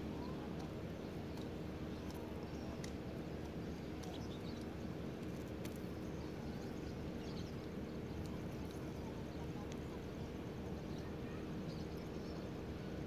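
Steady outdoor background noise with a constant low hum and a few faint ticks.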